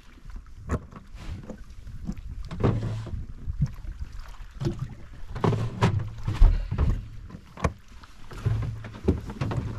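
Knocks and thumps inside a fiberglass bass boat as a freshly landed bass is handled and stowed, with one loud low thump about six and a half seconds in. Under them runs a low hum.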